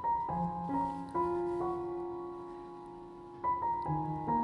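Background music: a gentle piano melody of single struck notes that ring on. There is a short run of notes, a pause, then a second run near the end.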